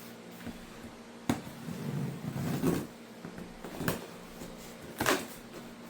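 Cardboard shipping box being handled and turned around, with three sharp knocks and some scraping and rustling in between.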